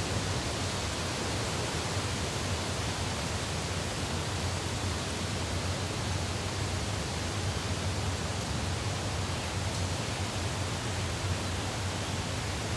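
Steady, even rushing noise with a low hum underneath, unchanging throughout.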